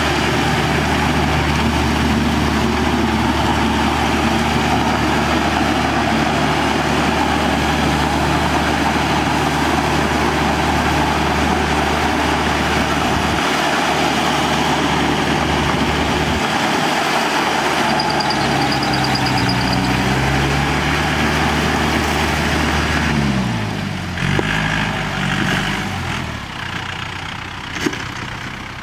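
Yanmar YM 348A tractor's diesel engine running steadily under load as it drives a rotovator through a flooded paddy field. A few seconds before the end the engine note falls and shifts and the sound gets quieter.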